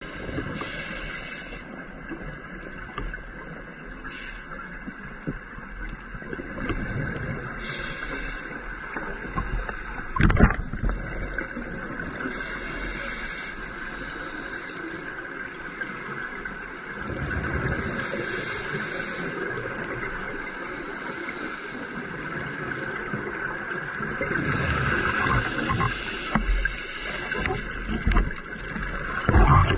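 Scuba diver breathing through a regulator underwater: a hiss with each inhale every few seconds, and rumbling bubble gurgles with each exhale.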